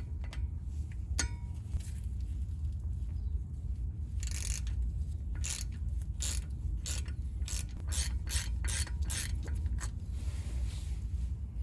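Ratchet wrench with a Torx T30 socket clicking as it backs out the small rotor retaining screw on a Mercedes W221 front hub: a short run of clicks about four seconds in, then a series of separate clicks at two or three a second, over a steady low hum.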